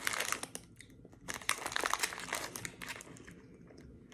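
Plastic fruit-snack pouch crinkling as it is handled in the hands: a flurry of crackles at the start, a short pause, then more crinkling for about a second and a half before it dies away.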